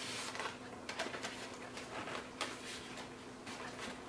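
Scattered soft clicks and rubbing of EPO foam parts being handled, as the tail surfaces are test-fitted into a foam model-plane fuselage, over a faint steady hum.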